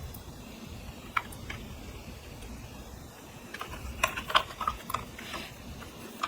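Clear slime being mixed and squished by hand, giving short sticky clicks and pops: a single click about a second in, then a quick run of them near the middle, over a low steady rumble.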